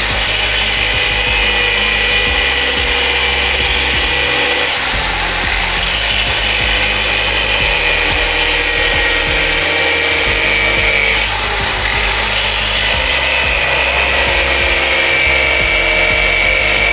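Corded electric drill spinning a small cutting disc through the hard shell at the base of a dry coconut: a steady rasping cut with a motor whine that sags slowly under load and picks back up twice.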